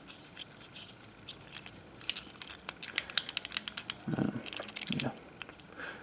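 Plastic Fidget Cube being fidgeted under a thumb: scattered small clicks and ticks that become a quick run of sharper clicks in the middle.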